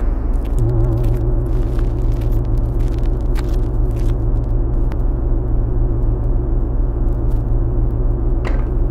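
A loud, steady low hum with a wavering higher tone over it and scattered crackles, cutting off suddenly near the end.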